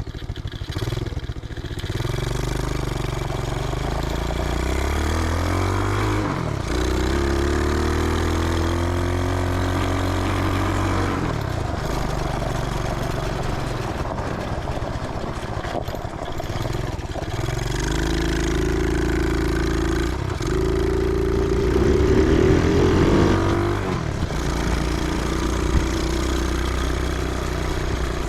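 Small 125cc engine of a reverse-trike ATV being ridden. Its pitch climbs under throttle and drops sharply about six times as the rider works the throttle and gears over rough ground.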